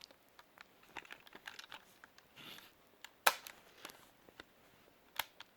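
Panasonic RQ352 portable cassette recorder being handled: scattered small clicks and rustles, with two sharp clicks of its transport buttons, one about three seconds in and one near the end.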